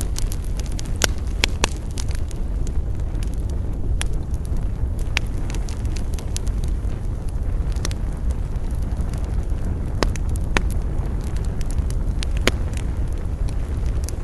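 Campfire burning with a steady low rumble, broken by sharp, irregular crackles and pops of the burning wood, a few close together near the start and scattered singly after.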